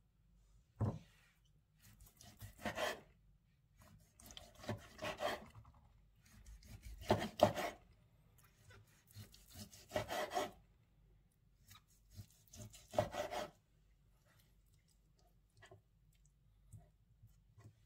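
Chef's knife drawn through cooked chicken breast on a wooden cutting board in about five slow sawing strokes, each one scraping along the board. There is a single knock about a second in.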